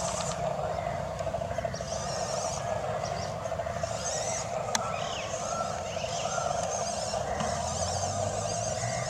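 Electric motor and gearbox of a 1/16 WPL RC truck whining steadily as it crawls up a grassy slope, with birds calling now and then in the background.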